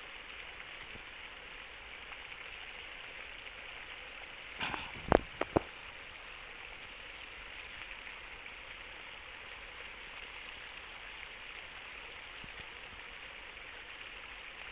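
Steady outdoor hiss with no voice. About five seconds in there is a quick cluster of three or four sharp clicks.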